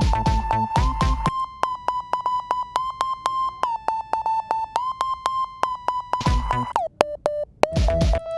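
Electronic ringtone track playing back: a synthesizer lead around one pitch with short glides between notes over rapid repeating synth notes. The drum-machine beat drops out about a second in and comes back near the end.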